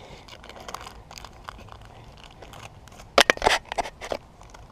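Crinkling and rustling of small plastic-wrapped survival-kit items being handled and packed into a metal Altoids tin, with light clicks throughout. A short cluster of louder, sharper crackles comes about three seconds in.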